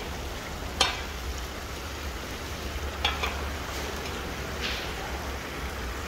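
Steady hiss of a giant plov cauldron cooking as julienned carrots are spread over the meat and broth, with a long metal skimmer scraping and knocking on the pot three times.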